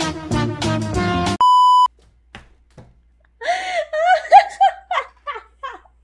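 Upbeat music cuts off about a second and a half in, followed by a loud single beep, a steady tone held for about half a second. After a short pause a woman gives a high-pitched, pulsing laughing squeal for about two seconds.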